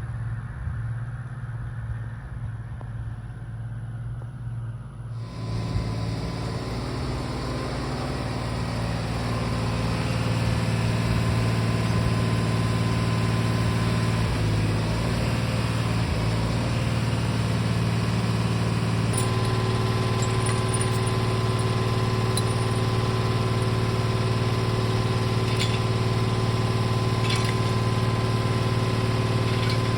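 A vehicle engine running steadily at a constant speed, its hum unchanging, with a few faint clicks in the later part.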